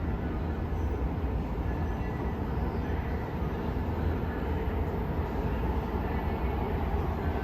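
Los Angeles Metro subway train rumbling steadily in the station, with faint steady whining tones above the rumble.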